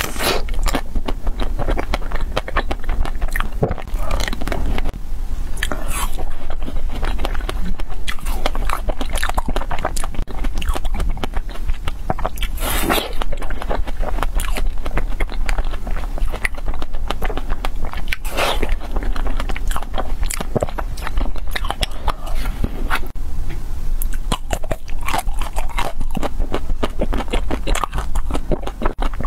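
Close-miked eating of frozen ice-cream bars: bites into the bars crackling and crunching, with wet chewing between them. Two louder bites stand out near the middle.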